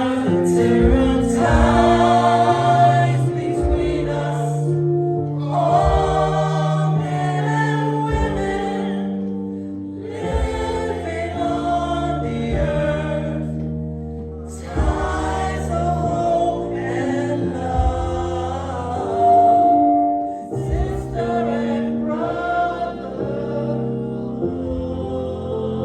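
A choir singing a gospel song, sustained chords in phrases of a few seconds each with short breaks between them.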